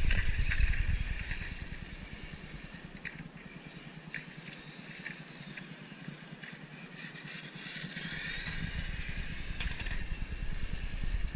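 A small electric radio-controlled car's motor whining as it drives across block paving. A heavy low rumble on the microphone is strong at first, fades for a few seconds in the middle and builds again near the end.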